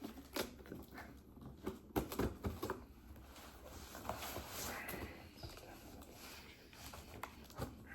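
Hands working at a shipping package to get it open: scattered knocks and scratching, with a longer scraping, tearing stretch about four to five seconds in.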